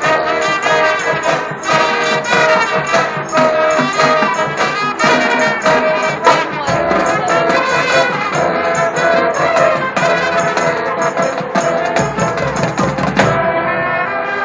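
High school marching band playing loud brass with drumline percussion, in sustained chords and rhythmic hits. About 13 seconds in the drum strokes and high notes drop away, leaving a softer held sound.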